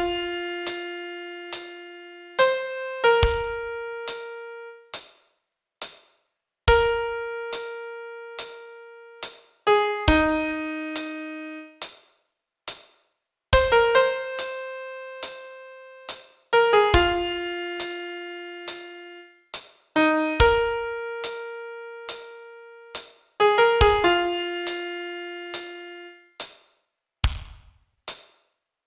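Piano playing a slow song melody one note at a time, each note struck and left to ring and fade. A deep bass note sounds at the start of each phrase, about every three and a half seconds, with brief gaps between phrases.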